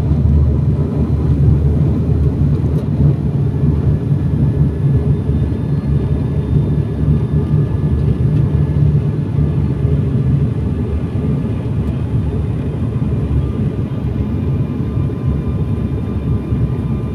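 Steady, loud drone of an airliner in flight heard inside the passenger cabin, heaviest in the low end, with faint steady whining tones above it; the low rumble eases slightly about two-thirds of the way through.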